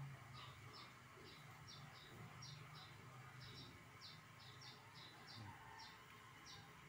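Faint, near-silent outdoor ambience with a small bird chirping over and over: short high chirps about three a second, often in pairs. A low hum is heard at first and fades after a second or two.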